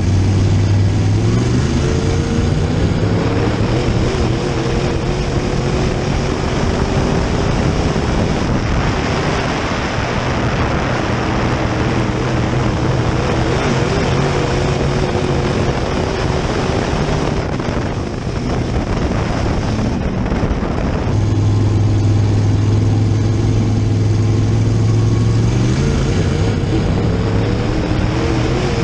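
Open-wheel dirt modified's V8 engine at racing speed, heard from inside the car. Its pitch climbs in the first few seconds and again near the end as it accelerates. In the middle, a broad rush of wind and tyre noise rises over it.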